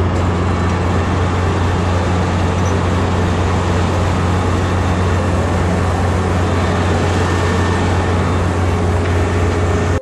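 Kubota combine harvester running steadily: a constant low engine hum under a broad mechanical rushing noise from the harvesting machinery, cutting out briefly near the end.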